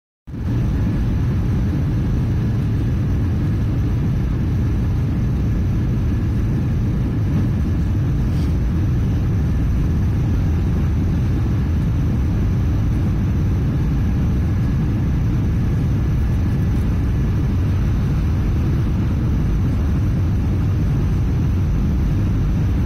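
Steady cabin noise inside an Airbus A319 airliner during its descent to land: a constant low rumble of jet engines and airflow with a faint steady whine above it.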